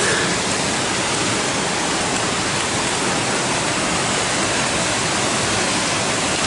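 Loud, steady rush of a fast-flowing mountain creek tumbling over rocks and cascades, an unbroken wash of water noise.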